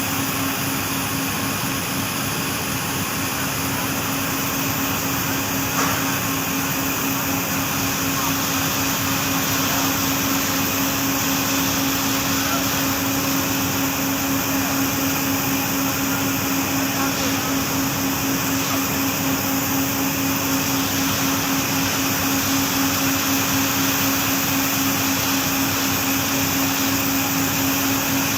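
Factory machinery running steadily, a loud even noise with a constant low hum, and a single small click about six seconds in.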